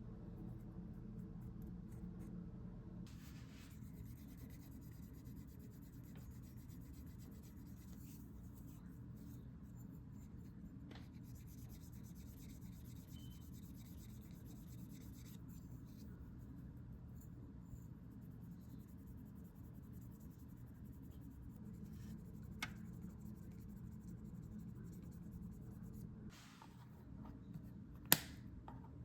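Quiet hand work on leather: soft rubbing and scratching of a tool over the hide, with a few sharp clicks, the loudest near the end, over a steady low hum.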